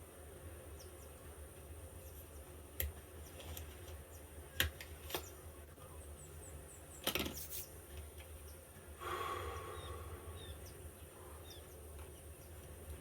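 A few sharp clicks and knocks of small objects being handled, over a low steady hum, with a short rustling or breathy noise about nine seconds in.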